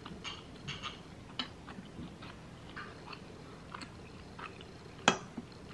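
A person chewing food close to the microphone: soft wet mouth clicks and small crackles, with a sharper click about five seconds in.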